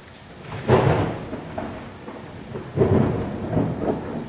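Thunderstorm sound effect: steady rain with rolls of thunder, the first about three quarters of a second in and the loudest, a second near three seconds.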